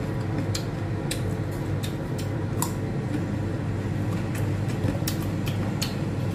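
Washing machine running, a steady low hum, with sharp, irregular clicks about twice a second over it.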